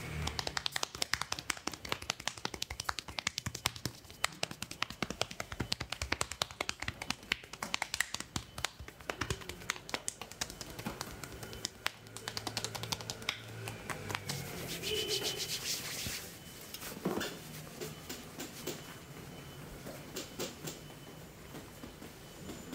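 Quick percussive strikes of a barber's hands on a client's back through a cotton shirt, a fast run of several slaps a second that thins out to sparser, softer taps after about fourteen seconds.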